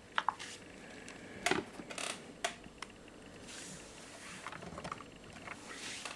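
Handling noise: scattered sharp clicks and taps with some rubbing and rustling, the loudest clicks about a quarter of a second and a second and a half in. No ringtone or alarm is sounding.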